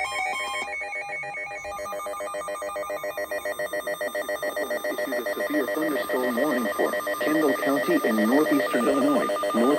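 A steady electronic ringing tone, pulsing rapidly like a telephone ringer, holding several fixed high pitches. About halfway through, a voice starts speaking over it.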